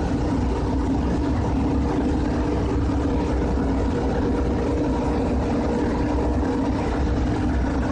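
Steady drone of running machinery: a constant low rumble with a held hum in it, unchanging throughout.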